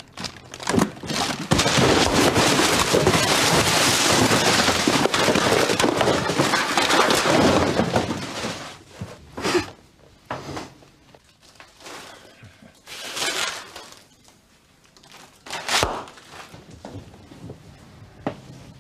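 Rummaging through cardboard boxes and packets on metal shelving: a dense stretch of rustling and handling noise for about six seconds, then scattered knocks and thuds.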